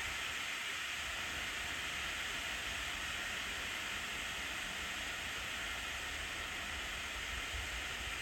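Steady hiss of steam from an LNER B1 steam locomotive, with no exhaust beats.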